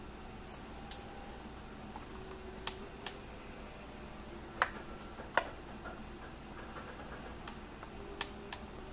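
Sparse clicking at a computer, about eight short sharp clicks at uneven intervals, the loudest two about halfway through, over a faint steady hum.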